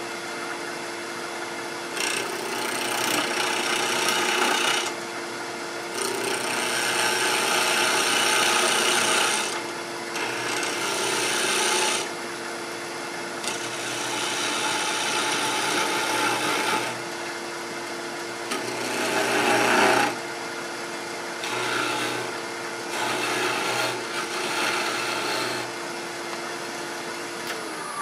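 Wood lathe running with a steady motor whine while a hand turning tool cuts a small Macassar ebony blank in a series of short scraping passes, about seven, each lasting a second to a few seconds, as the piece is turned down to size.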